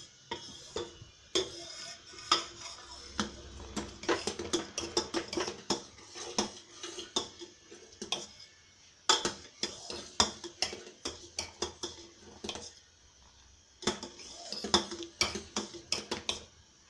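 A metal spoon stirring thickening milk in a metal saucepan, clinking and scraping irregularly against the pan's sides and bottom with a short ring after the sharper knocks, and a brief pause about three-quarters of the way through. This is the steady stirring that keeps milk reducing for rabri from catching on the pan.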